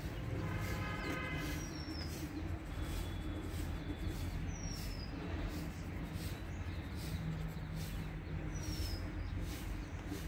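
Outdoor background: a steady low rumble, with a bird repeating a short, high, falling chirp every few seconds.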